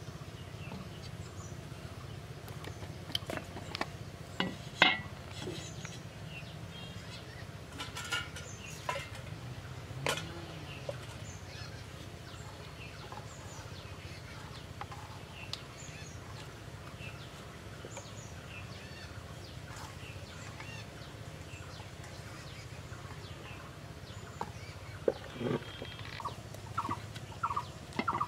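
Outdoor ambience with small birds chirping here and there over a steady low hum, and a few sharp clicks. Near the end, domestic fowl call in a run of short, quick calls.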